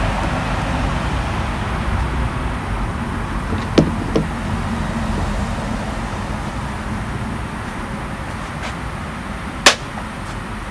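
Hand claps: a quick, lighter pair about four seconds in, then one sharp, loud clap near the end, over a steady background hiss.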